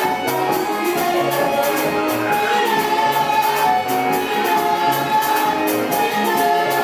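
Gospel music with a choir or group of voices singing over a band with a quick, steady drum beat.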